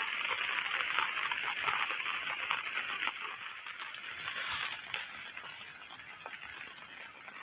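Heavy rain falling and pattering steadily, easing slightly as it goes, with a steady high-pitched tone running over it.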